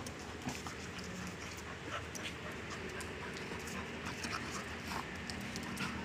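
A golden retriever and a young yellow Labrador play-fighting, panting and scuffling on concrete, with short scattered clicks and taps.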